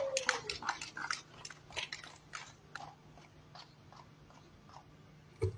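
Scattered hand clapping from a few people in the hall, dying away over about three seconds, then a single soft thump near the end.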